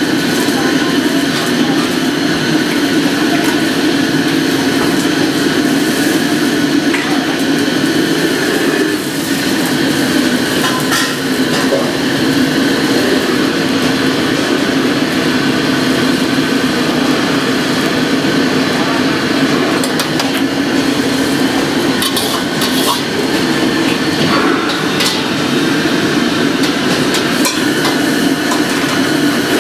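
Steady rushing noise of a gas wok range and kitchen extraction, with a metal wok spatula scraping and clanking against a carbon-steel wok during stir-frying; a few sharper clanks come in the second half.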